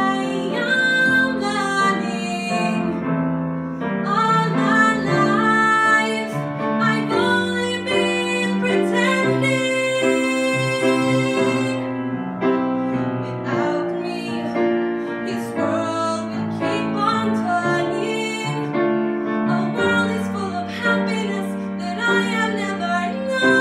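A woman singing a slow ballad solo with piano accompaniment, the voice holding long notes over sustained chords.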